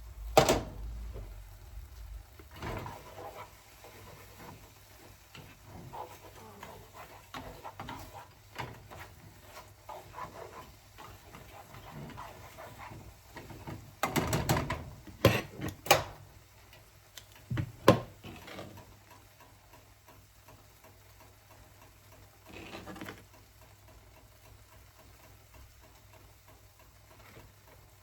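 Irregular clicks, knocks and light clatter of things being handled, with a cluster of sharper clacks about halfway through and one more a few seconds later.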